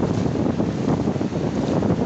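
Wind buffeting the microphone with a steady low rumble, over the wash of small surf breaking and running up a sandy beach.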